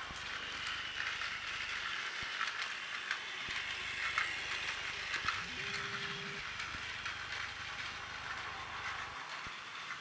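Plarail toy trains running on plastic track: a steady whir of small battery motors and gearboxes with a continual patter of clicks from the wheels over the track joints, the E233-series train passing close about halfway through.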